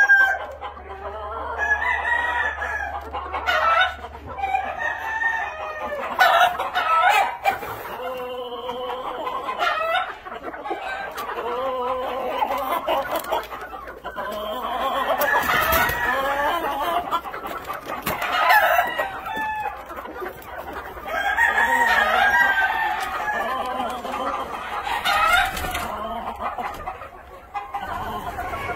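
A flock of Black Old English Game chickens clucking and calling over one another, with rooster crowing among the calls.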